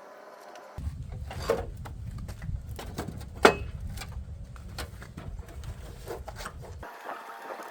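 Hand-tool work: scattered knocks, clicks and rubbing, with one sharp knock about three and a half seconds in, over a steady low rumble that starts and stops abruptly.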